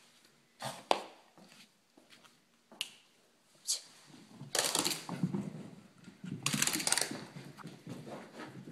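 Miniature pinscher's paws thudding and scrabbling on carpet as she runs around the room: a few sharp clicks in the first four seconds, then two longer bursts of rapid padding, about five and about seven seconds in.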